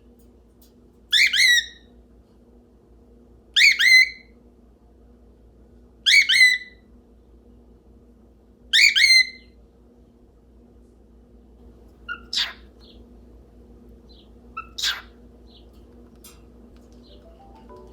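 Cockatiel giving four loud, downward-sliding calls about every two and a half seconds, then two shorter, fainter chirps. It is calling for its owner while left alone.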